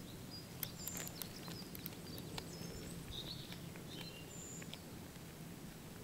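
A cat chewing a field mouse: a run of small crisp crunching clicks, mostly in the first half. Birds chirp in the background.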